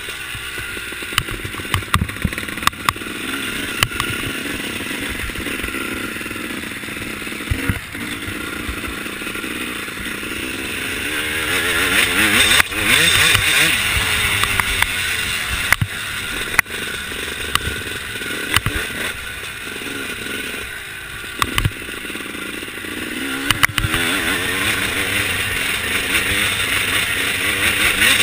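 Dirt bike engine running hard as it is ridden round a motocross track, the pitch rising and falling with the throttle and climbing most strongly about a third of the way in and again near the end. Scattered sharp knocks come through with it.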